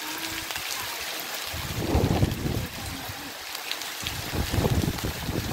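Heavy tropical rain hissing steadily on the trees and leaves. Gusts of wind rumble on the microphone about a second and a half in and again near the end.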